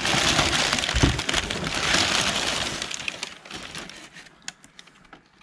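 Crumpled packing paper rustling and crackling as hands dig through it in a cardboard box, dying away after about three seconds into a few light clicks.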